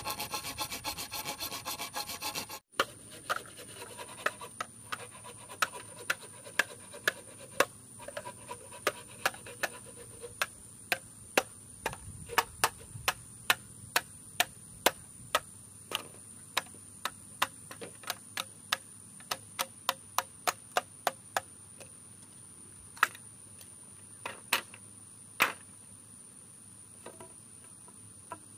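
Hand tool work: a couple of seconds of rapid scraping or rasping, then a long irregular run of sharp light knocks, about one or two a second, thinning out after about twenty seconds. A thin steady high whine runs underneath.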